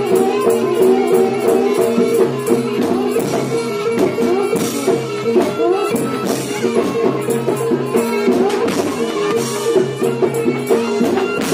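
Live traditional Javanese barongan accompaniment music: a gamelan-style ensemble of drums and tuned percussion keeps up a steady, dense beat of sharp strokes over held, ringing pitches.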